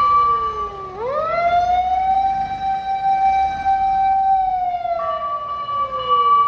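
Fire-engine siren wailing. Its pitch slides down, climbs quickly about a second in, holds, then falls slowly through the second half, with a steady higher tone sounding alongside at the start and again from about five seconds in.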